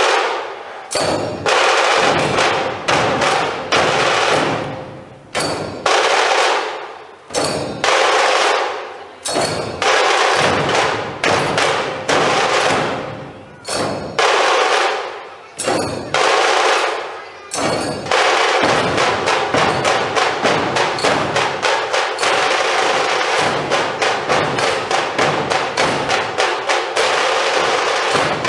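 Dhol-tasha drumming: loud struck strokes about once a second, each ringing out and fading. About two-thirds of the way through it turns into a fast, steady beat of about three or four strokes a second.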